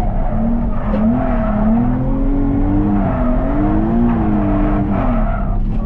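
Car engine at a drift event revving up and down over and over, its pitch rising and falling, over a steady rush of noise.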